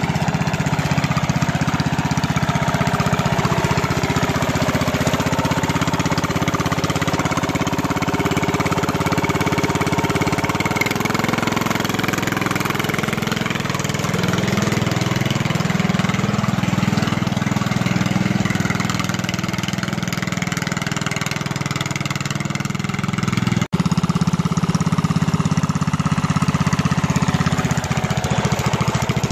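Ride-on lawn mower's small petrol engine running while being driven, its pitch rising and falling with the throttle. The sound breaks off for an instant about three quarters of the way through, then the engine carries on a little louder.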